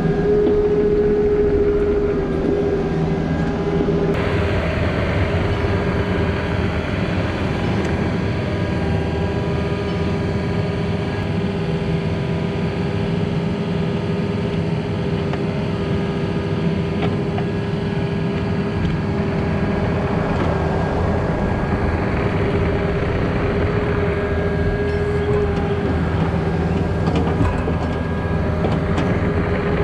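Diesel engine of a compact earthmoving machine running steadily at working speed, with a steady whine over it; the sound picks up about four seconds in.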